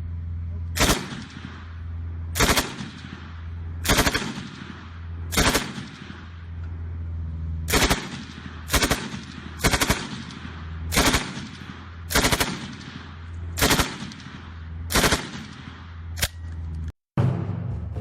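Light machine gun firing a series of short bursts, about a dozen, spaced roughly one to one and a half seconds apart, each followed by a ringing echo.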